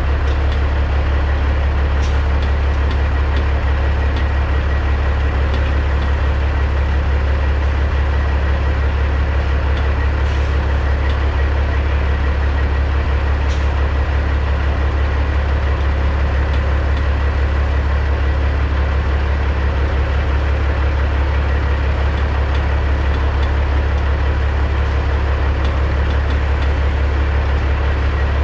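Caterpillar C15 diesel of a 2006 Peterbilt 379 semi truck idling steadily with a low drone while the rig creeps backward, heard from outside the cab beside the exhaust stack.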